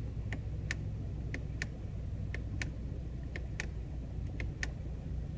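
Sharp clicks from the 2016 Chevrolet Camaro's cabin controls, coming in pairs about a third of a second apart, one pair a second, five times over. A steady low hum runs underneath.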